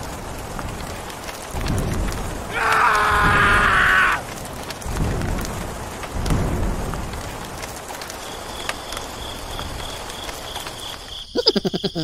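Rain falling, with several low rolls of thunder. A few seconds in, a loud pitched sound with overtones is held for about a second and a half, falling slightly in pitch. Near the end comes a rapid rattle of clicks.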